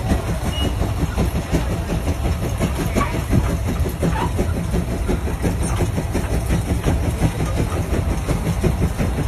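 Case steam traction engine working under heavy load, pulling a 44-bottom gang plough: a steady low running sound with a fast, even beat.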